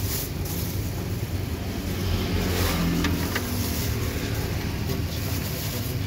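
Steady low rumble of street traffic running throughout, with brief crinkling of a thin plastic bag being handled about two and a half to three and a half seconds in.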